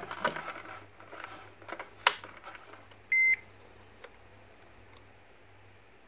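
Digital multimeter in diode mode giving one short beep about three seconds in, the tone it makes when the probes find a conducting path. It comes after a few clicks of the probe tips on the switch terminals, one of them sharp.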